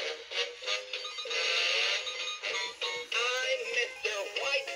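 Animated plush snowflake-spinner snowman playing its built-in Christmas song with a sung vocal through its small speaker, thin and without bass, as its snowflakes spin.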